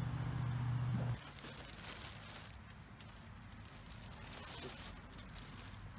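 A steady low hum that cuts off about a second in, then a clear plastic bag crinkling and rustling in a couple of short bouts as a new hood pad is pulled out of it.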